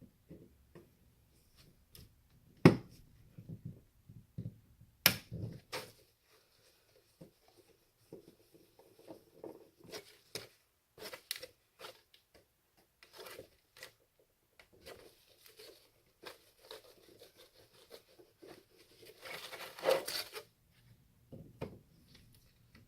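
A CD drive being taken apart by hand for scrap: scattered clicks and knocks of its plastic and sheet-metal parts as it is handled and pried open, with two sharp knocks about 3 and 5 seconds in and a second or so of rasping, tearing-like scraping near the end.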